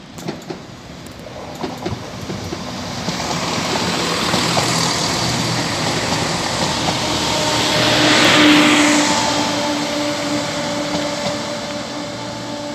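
Greater Anglia Class 170 Turbostar diesel multiple unit passing close along the platform, its engine hum and wheel-on-rail rush growing, loudest about two-thirds of the way through, then fading as it moves away.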